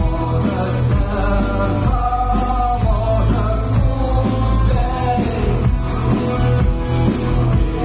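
Live rock band playing, with a singing voice over guitars and a steady bass.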